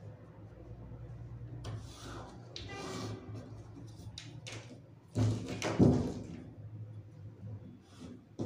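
A long metal ruler being handled on folded fabric on a table: a scraping stroke as a line is drawn along it, then two sharp knocks a little past the middle as the ruler is lifted and set down again. A low steady hum runs underneath.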